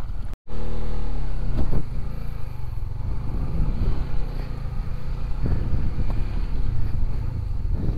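Honda CB150X motorcycle's single-cylinder engine running steadily while riding over a rough, broken road, with a few short knocks from the bumps.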